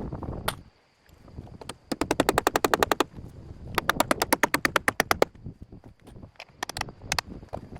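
Fast, even rattling clicks in bursts: one about a second long, then one about a second and a half long, then a few short bursts near the end.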